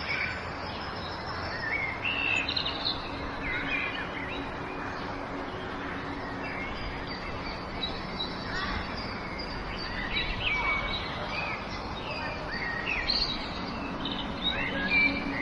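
Several wild birds chirping and calling in short, quick sweeping notes, scattered throughout, over a steady background hiss of outdoor ambience.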